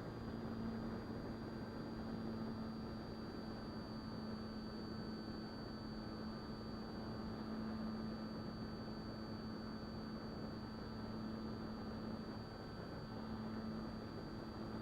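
Steady low hum under an even hiss, with a thin high whine; it holds one pitch throughout.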